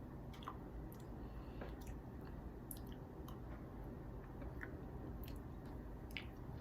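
A person eating a mouthful of instant mashed potatoes, with faint chewing and mouth sounds and scattered small clicks over a low steady hum.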